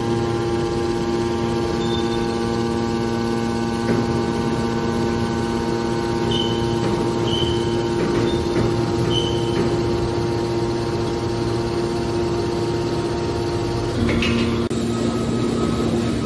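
Hydraulic power unit of a scrap-metal baler running: a steady electric-motor and pump hum with several fixed tones. Near the end its tone changes with a short hiss.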